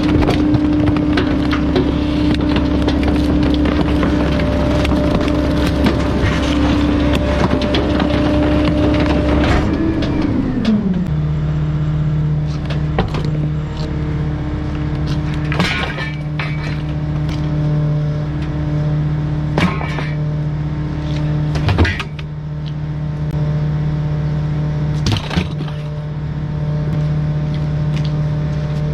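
Bulky-item refuse truck's engine running steadily, its pitch dropping about ten seconds in and settling at a lower steady speed. A few sharp clicks and knocks sound over it in the second half.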